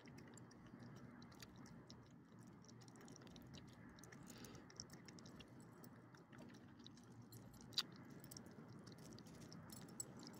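Small dog faintly chewing and licking food off pavement: a run of quick, irregular wet clicks, with one sharper click a little under eight seconds in.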